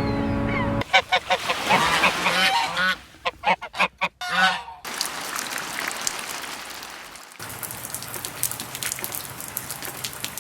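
A steady pitched drone stops just under a second in, then geese honk for about four seconds. After that comes a steady hiss, giving way to what sounds like rain pattering.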